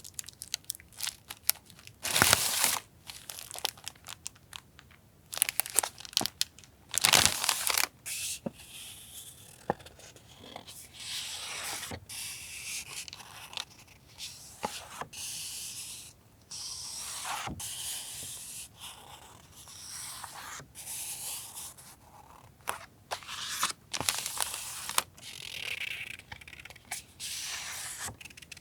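Paper and packaging handled up close: irregular rustling and crinkling, with short tearing sounds and sharp crackles, a few of them louder.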